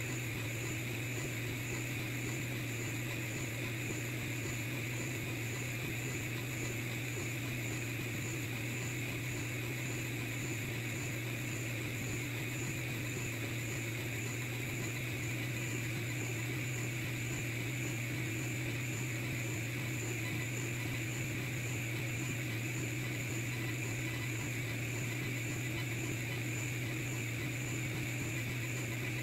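Longer Ray 5 10 W diode laser engraver running through an engraving job, giving a steady, even machine hum with a thin high whine above it.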